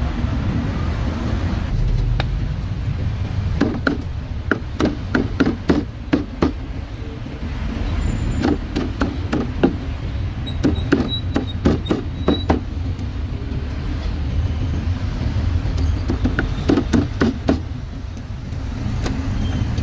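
Cleaver chopping meat in quick, irregular runs of sharp knocks, stopping and starting, with a short run near the end, over steady traffic rumble.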